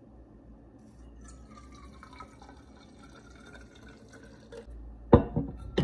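Faint dripping and trickling of water with small ticks, then a sudden loud clatter of several sharp knocks about five seconds in.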